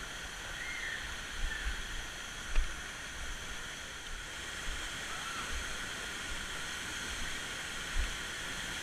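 Steady rushing hiss of a river and waterfall, with scattered low thumps on the microphone. The strongest thumps come about two and a half seconds in and near the end.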